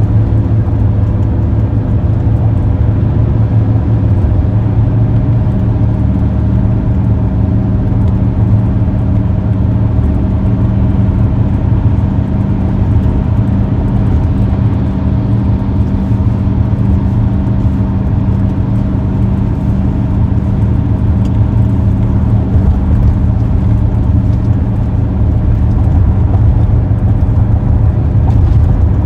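Steady road and engine noise of a car driving at speed, a constant low rumble with a faint even hum, no change throughout.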